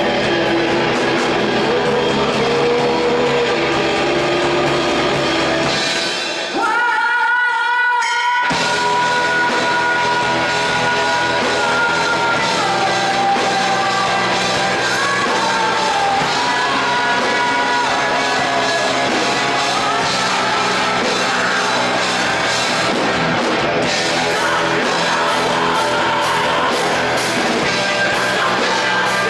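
Live rock band playing with sung vocals. About six seconds in, the bass and drums drop out for two seconds and a single held high note rings on alone. Then the full band comes back in.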